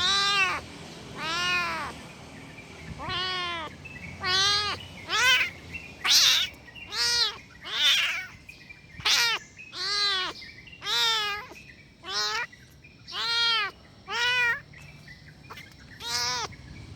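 A kitten meowing angrily over and over, about fifteen short high calls roughly a second apart. Each call rises and then falls in pitch, and a few are harsher and rougher than the rest.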